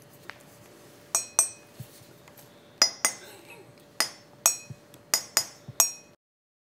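Ceramic mugs tapped with a thin stick: about nine sharp, ringing clinks, several coming in quick pairs, then the sound cuts off suddenly.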